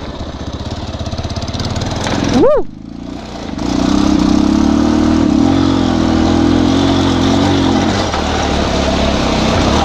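Bajaj Pulsar 220 motorcycle's single-cylinder engine running on the move, with a quick rev that rises and falls about two and a half seconds in, a brief drop in level, then a louder steady pull under throttle from about three and a half seconds in.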